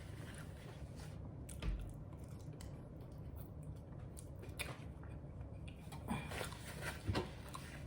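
Faint chewing and mouth sounds of someone eating, with a few soft smacks.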